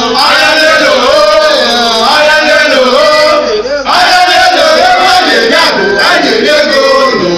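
A group of men and women singing and chanting together loudly, in sung phrases of one to two seconds with short breaks between them.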